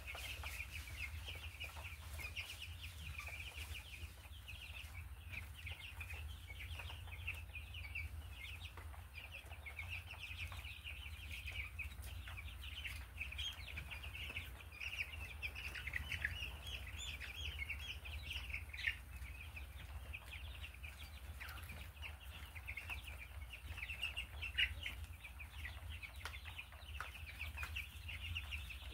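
A brooder full of 13-day-old Cornish Rock Cross meat chicks peeping continuously, many high peeps overlapping with a few louder ones standing out, over a steady low hum.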